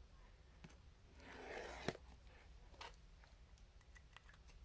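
Faint handling of a cardboard trading-card box: a soft rustle about a second in, ending in one sharp click, then a few small ticks.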